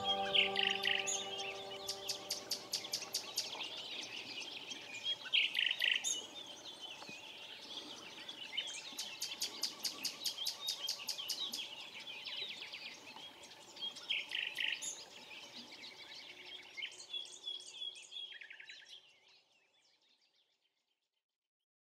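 Songbirds singing: fast repeated trills alternating with short descending whistled phrases. A held musical chord dies away in the first couple of seconds, and the birdsong fades out about nineteen seconds in.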